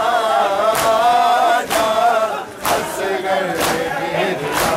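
Male voices chanting a Punjabi noha, the Shia Muharram lament, over rhythmic matam: bare-chest slaps struck in unison by a crowd of men, about one sharp slap a second.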